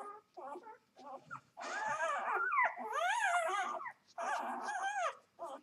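Newborn Vizsla x Labrador puppies whimpering and squeaking while nursing. Short squeaks come first, then longer, high, wavering cries from about a second and a half in.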